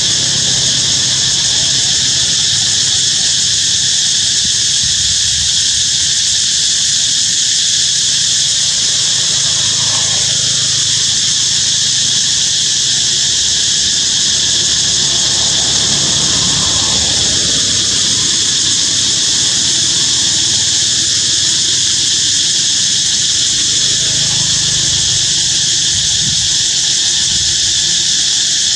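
Loud, steady chorus of forest insects, a dense high-pitched drone that holds without a break.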